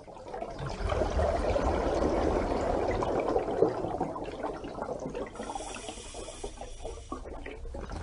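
Water rushing and splashing in a steady, irregular wash, with a brief higher hiss about two-thirds of the way through.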